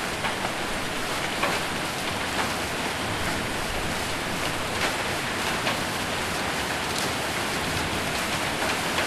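Heavy rain with hail drumming on a roof: a dense, steady hiss with scattered sharper hits about a second apart.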